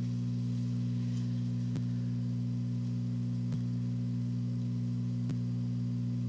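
Steady low electrical-sounding hum made of several held tones, with a faint sharp click about every 1.8 seconds, three times.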